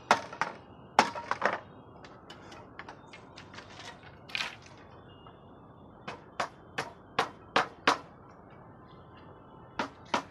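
Sharp hammer blows in quick runs, about two or three a second, with pauses between the runs.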